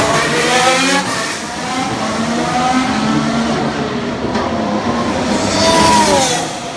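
Formula 1 cars' 1.6-litre turbocharged V6 hybrid engines running past at speed, their pitch rising and falling through the gears. Near the end a loud pass ends with the engine note dropping as the car goes by.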